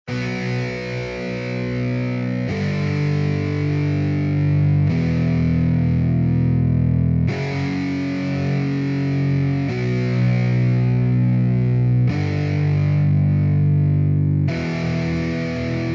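Instrumental intro of a hip-hop/rock track: distorted electric guitar chords held and changing about every two and a half seconds, with no vocals.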